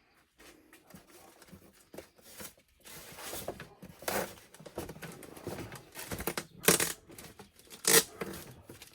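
Packaging being handled: irregular rustling, crinkling and tearing as extra parts are pulled out of a model jet's box, with a few sharper loud rips about four, six and a half, and eight seconds in.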